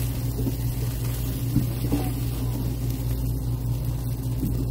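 A steady low hum, with a few faint pops and crackles from a tri-tip searing on an open propane gas grill.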